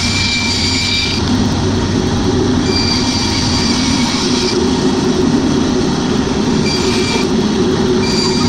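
Band saw running, its blade cutting through a cast block of epoxy resin and colored pencils. A steady low hum underlies a high whine that comes and goes: during the first second, again from about three to four and a half seconds in, and briefly near seven seconds.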